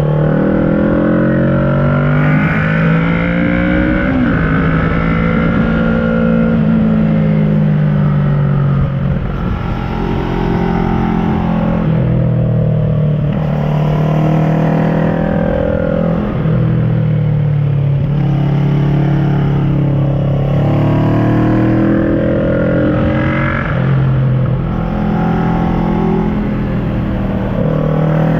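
2010 Kawasaki ER-6n's parallel-twin engine through an SC Project carbon exhaust, accelerating and easing off. Its pitch rises and drops again several times as the bike pulls through the gears.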